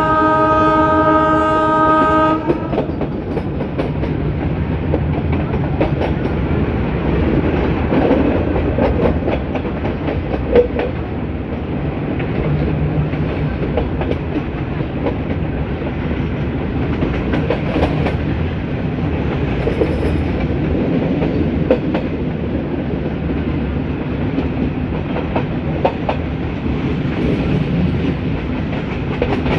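A YDM4 diesel locomotive's horn holds one steady tone and cuts off about two seconds in. After that the metre-gauge train runs on with a steady rumble and the clicking of wheels over rail joints.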